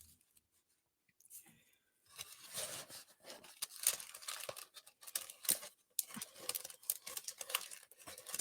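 A parcel's wrapping being torn open and crinkled by hand: irregular rustling and tearing that starts about two seconds in and goes on in uneven handfuls.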